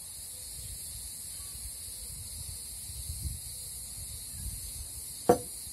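Steady, high-pitched insect chorus of crickets or cicadas. A single sharp click about five seconds in is the loudest sound.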